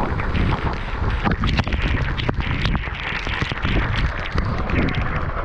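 Waterfall water crashing down and splashing close up, pelting hard with many sharp splash hits over a low rumble.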